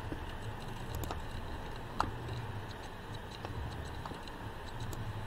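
A few scattered computer mouse clicks, the loudest about two seconds in, over a faint low hum.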